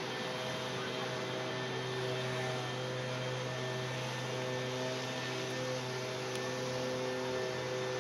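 A steady, droning hum with several held higher tones above it that come and go, over street noise.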